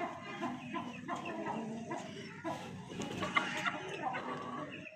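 Chicken clucking repeatedly in short, irregular calls.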